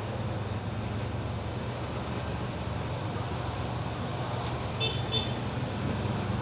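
Corded electric hair clippers buzzing steadily as they cut hair, over a background of street traffic. A few short high-pitched chirps come about four and a half to five seconds in.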